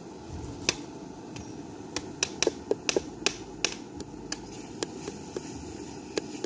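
Sharp taps of an egg knocked against the top of an upturned metal tin to crack its shell: one tap, then a quick run of about eight, then a few more spaced out.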